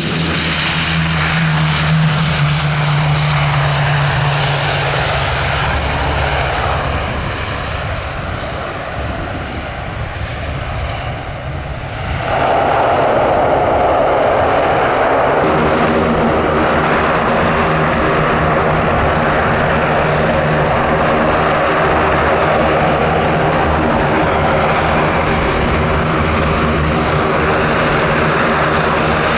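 Large airplane's engines running loud and close, a heavy rumble with a steady high turbine whine. The sound changes abruptly about twelve seconds in and again about three seconds later, then runs on steadily.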